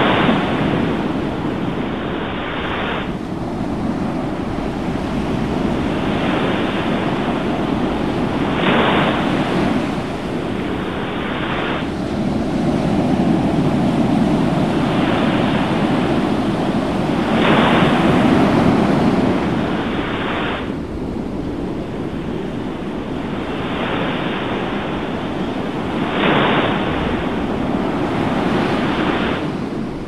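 Ocean surf: waves breaking and washing in, a steady rushing noise that swells and eases every few seconds.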